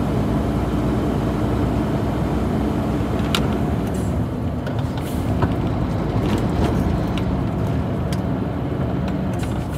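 Heavy truck driving on the highway, heard from inside the cab: a steady engine drone with road noise, and a few sharp clicks or rattles, the loudest about three and a half seconds in.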